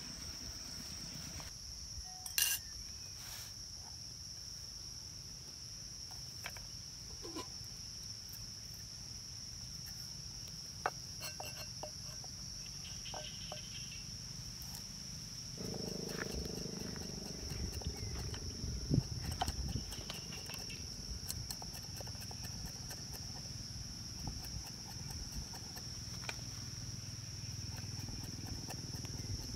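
Steady high-pitched insect chirring, with scattered knocks of a cleaver chopping on a wooden cutting board in the second half.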